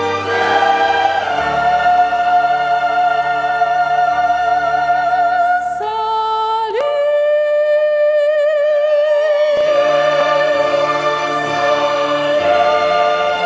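Church choir singing a hymn with orchestral accompaniment. Around the middle the choir drops out and a lone high voice slides up and holds a long wavering note before the full choir and orchestra come back in.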